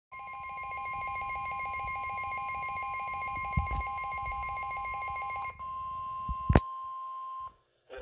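NOAA weather radio sounding the steady 1050 Hz warning alarm tone that announces a severe thunderstorm warning. For the first five and a half seconds a fast pulsing beep rings over it, then the tone goes on alone. A sharp click comes about six and a half seconds in, and the tone cuts off about half a second before the end.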